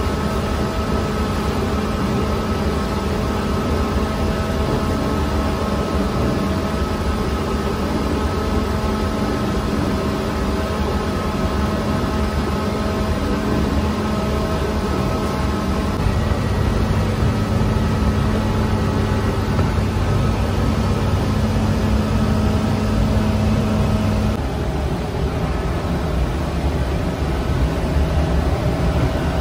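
Steady machinery hum of a bakery's rotating-deck bread oven and its equipment running, with several held tones; one low tone drops out a few seconds before the end.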